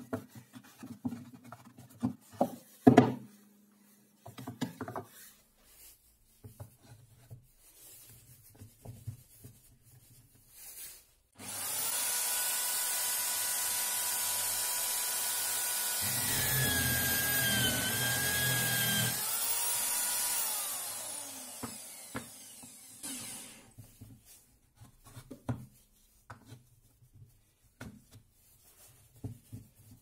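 Wooden jig blocks knocked and slid about on a wooden bench, then an electric drill in a homemade wooden drill press stand switched on about a third of the way in, running with a steady whine. Midway it labours, its pitch dipping as the bit bores into the wood block, then it is switched off and winds down, and the knocking of the wooden pieces resumes.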